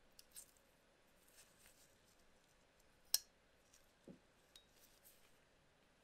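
Titanium frame-lock folding knife on a ceramic ball bearing pivot being closed, with faint small clicks and one sharp metallic click about three seconds in as the blade snaps shut, then a soft low knock about a second later.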